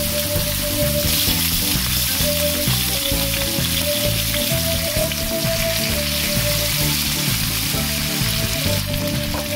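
Pork belly slices sizzling as they fry in their fat in a pan, a steady hiss, over background music with a simple melody and a stepping bass line.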